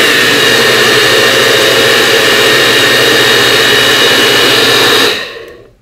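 Personal push-down blender motor running at full speed, pureeing pineapple and kiwi with water into a smooth liquid: a loud, steady high whine. About five seconds in it is released and spins down to a stop.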